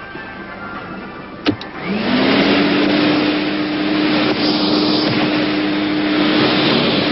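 Rainbow vacuum cleaner switched on with a click about a second and a half in. Its motor whines up to speed within half a second, then runs at a steady pitch under a loud rush of air.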